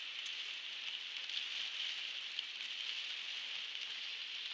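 Heavy rain falling on a moving car's windscreen and body, heard from inside the car: a steady hiss with scattered faint ticks of single drops.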